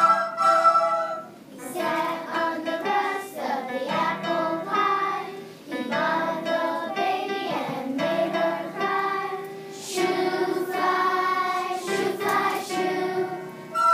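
Third-grade children singing together as a choir, with electric keyboard accompaniment.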